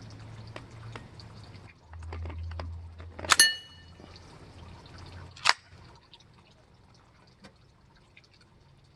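Two shots from a Ruger PC9 9mm carbine, about two seconds apart, each a sharp crack; the first is followed by a brief metallic ring.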